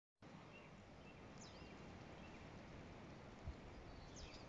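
Near silence: faint outdoor ambience with a few faint high bird chirps, and one soft low thump about three and a half seconds in.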